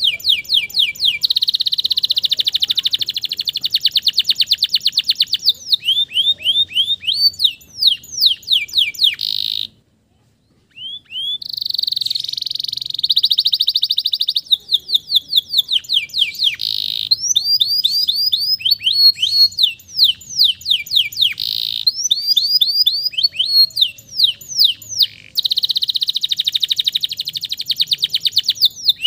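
Male domestic canary singing a long, continuous song of rapid trills and repeated down-slurred notes, with a brief break about ten seconds in.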